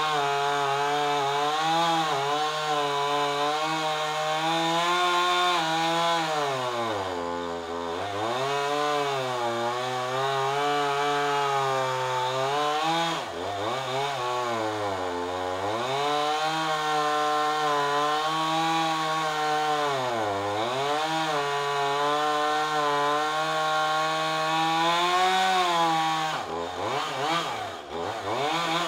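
Gas chainsaw's two-stroke engine cutting through a thick tree limb at full throttle, its pitch sagging and recovering several times as the chain bogs in the wood. Near the end the revs dip and waver repeatedly.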